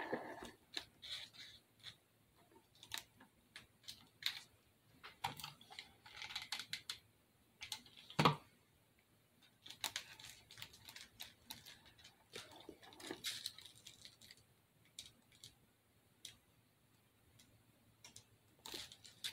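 Light, scattered clicks and taps of small craft decorations being handled and pressed into place, with a few brief rustles and one louder knock about eight seconds in.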